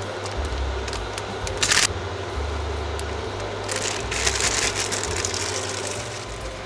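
Cooking sounds from a pot of vegetables simmering on a hob: a few clicks and a sharp knock about two seconds in, then a crackling hiss for a second or two a little past halfway.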